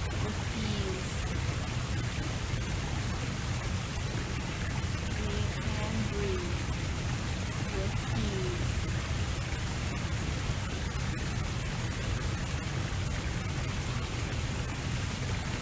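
Steady outdoor background noise with a low rumble, with a few faint short gliding chirps scattered through it.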